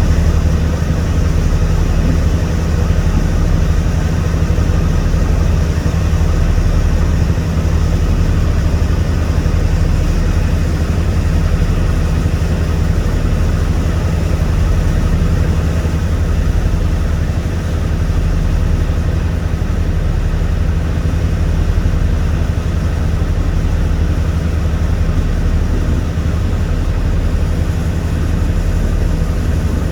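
A boat's engine running steadily, heard on board: a constant low hum with an even hiss above it.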